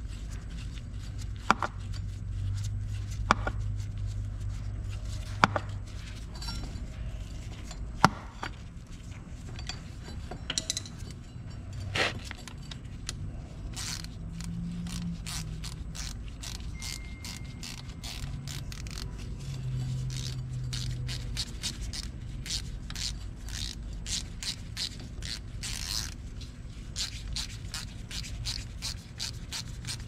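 Hand tools on a 2017 Honda Foreman 500's front brake caliper, metal on metal: a few separate sharp clicks and knocks, then from about halfway a fast, even run of short clicks with scraping as the caliper bolts are backed out.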